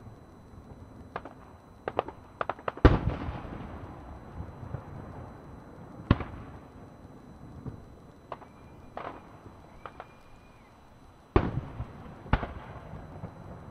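Aerial fireworks bursting: separate sharp bangs a second or more apart, the loudest about three seconds in and another strong one near the end, each trailing off in a rumble. Two faint high whistles sound around the middle.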